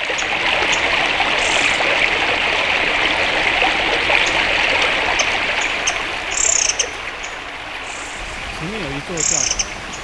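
Outdoor forest ambience: a dense, steady hiss that softens about six seconds in, with a few short high bird chirps. People's voices come in briefly near the end.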